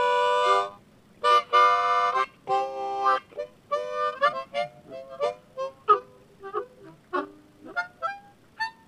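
C harmonica played with tongue blocking: a few held chords at first, then a choppy run of short single notes, several a second.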